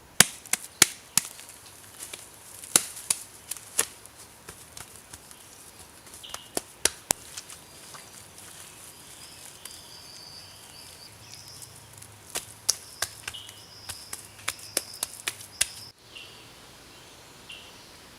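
Sharp taps and clicks in irregular clusters, with short high chirps in the background.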